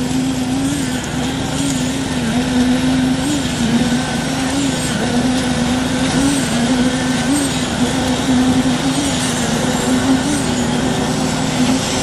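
An engine running steadily, a constant drone whose pitch wavers slightly.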